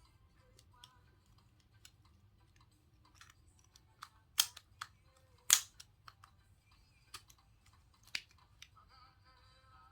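Sharp clicks and taps of small plastic and metal phone parts being handled and pried apart during disassembly, scattered and irregular, the two loudest about four and a half and five and a half seconds in.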